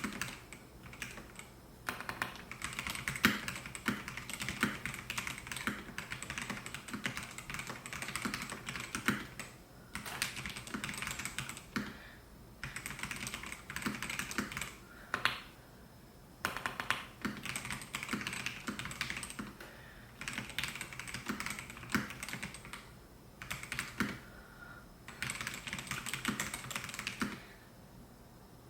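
Typing on a Melgeek Mojo68 mechanical keyboard with white Pro switches: quick runs of key clacks, broken by short pauses every few seconds.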